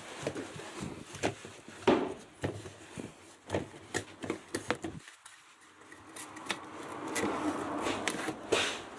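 Hand work on a front-load washing machine being taken apart: a series of clicks and knocks from tools and metal and plastic parts, the loudest a sharp knock about two seconds in. From about six seconds in comes a longer rubbing, scraping sound.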